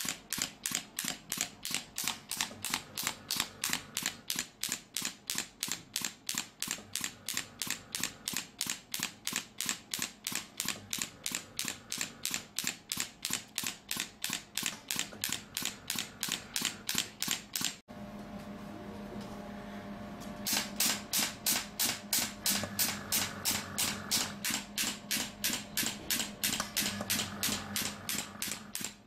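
Pneumatic radial shockwave therapy handpiece firing its pulses against the patient's shoulder: a fast, regular clicking of roughly three strikes a second. About two-thirds of the way through the clicking breaks off for a couple of seconds of steady hum, then resumes.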